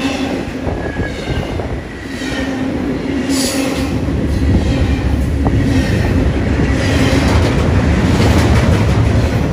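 Double-stack intermodal container well cars of a BNSF freight train rolling past close by: a steady heavy rumble of steel wheels on rail, with a faint high wheel squeal now and then and one sharp clank about five and a half seconds in.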